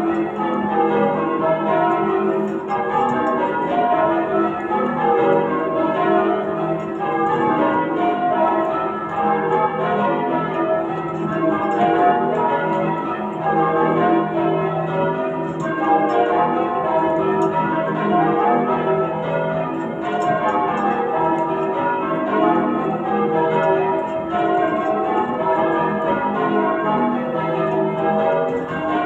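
Change ringing on a ring of eight church bells tuned to E with a 19 cwt tenor, cast in 1739, 1895 and 1914 by Thomas Bilbie and Llewellins & James: an unbroken, steady stream of bell strokes, the bells having an old character.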